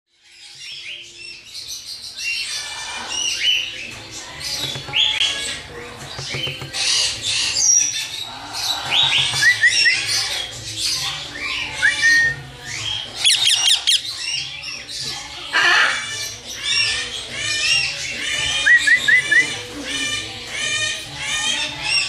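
A crowd of parrots squawking and chirping together in quick, overlapping short calls, over a low steady hum. The sound fades in over the first couple of seconds.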